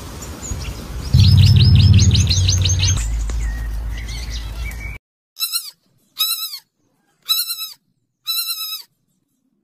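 A quick run of high chirps over a low hum and rumbling background. This cuts off suddenly and is followed by four short, high-pitched piglet squeals, each dropping in pitch at its end.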